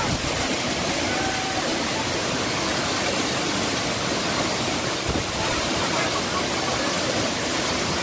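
Tall waterfall plunging into a rock pool: a steady rush of falling water.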